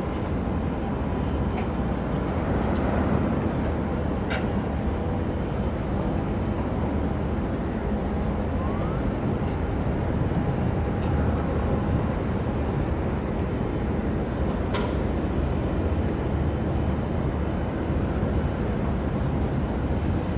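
Steady low drone of a large container ship's engines and machinery as it passes close by, with two brief high chirps, about four seconds in and near fifteen seconds.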